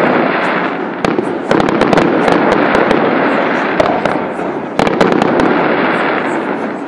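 Aerial fireworks display: shells bursting with a sharp bang every second or so over a continuous rumble and crackle of further explosions.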